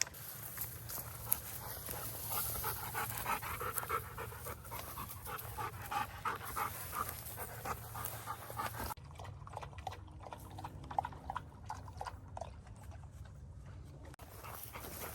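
A dog panting hard in quick, even breaths, which turn fainter about nine seconds in.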